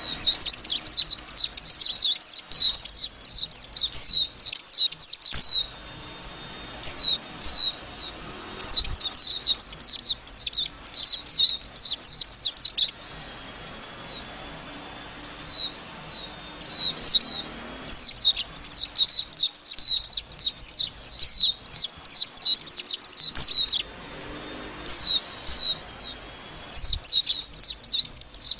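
White-eye singing: fast, high twittering phrases of a few seconds each, separated by short pauses.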